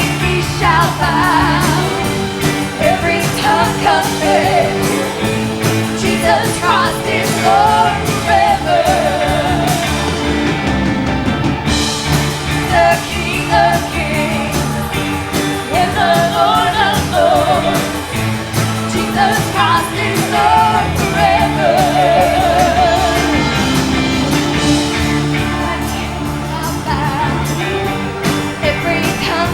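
Live gospel praise-band music: a wavering vibrato melody line over a steady, rock-style full-band backing.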